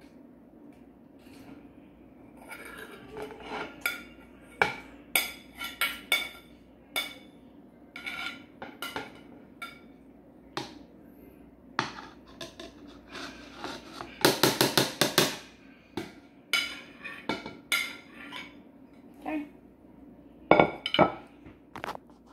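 A spoon stirring and scraping through spaghetti and cubed cheese in a large speckled enamel stockpot, with irregular clinks and knocks against the pot. A quick run of rapid taps comes about two thirds through, and two sharp knocks near the end.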